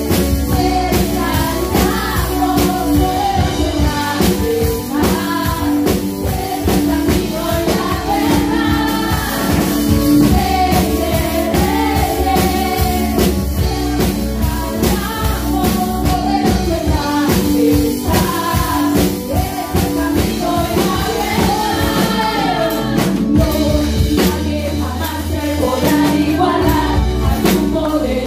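Live worship band playing a gospel praise song: women's voices singing the melody into microphones over keyboard and a drum kit keeping a steady beat.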